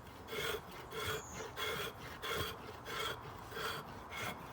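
Ash stick being scraped repeatedly along the 90-degree spine of a fixed-blade knife hammered into a log, stripping bark: rhythmic rasping strokes, about two a second.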